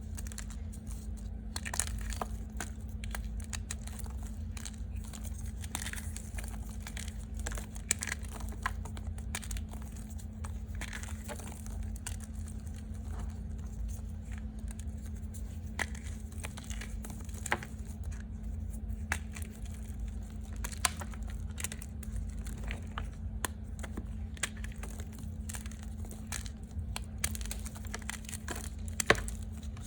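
Crunchy reformed gym chalk being crunched: many scattered, irregular sharp crunches and crackles, some tougher pieces among them, over a steady low hum.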